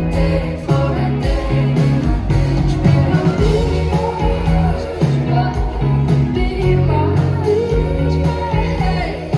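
Live pop band playing with a female lead singer: a heavy bass line and steady drum beat under the sung melody.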